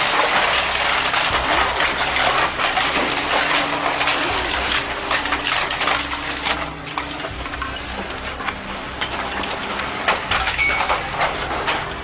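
Buildings collapsing: rubble and debris crashing and clattering down in a dense crackling din that eases off after about six and a half seconds.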